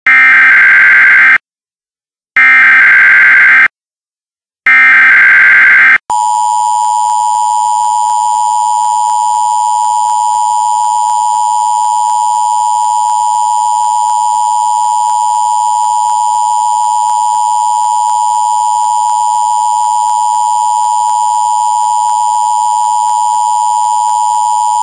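Emergency Alert System tones announcing a severe thunderstorm warning. First come three identical bursts of the SAME digital header, each about a second and a half long with short silent gaps between. About six seconds in, the steady two-tone EAS attention signal starts and holds unbroken.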